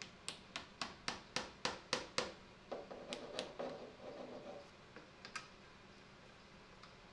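A steel bar clamp being fitted and tightened on a wooden workpiece: a quick run of regular metallic clicks, then a second or so of rattling and clatter, then a few single clicks.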